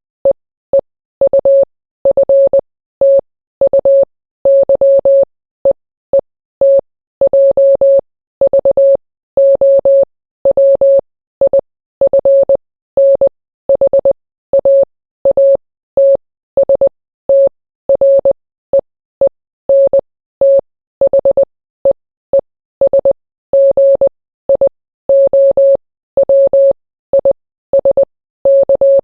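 Morse code practice: a single steady-pitched beep keyed on and off in short dots and longer dashes, grouped into letters and words with silent gaps between.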